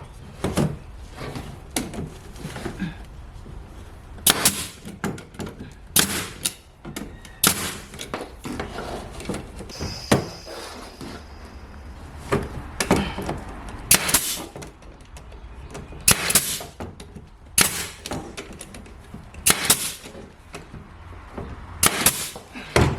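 A series of sharp knocks, roughly one every one to two seconds and unevenly spaced, as a wood strip is fastened over wall paneling.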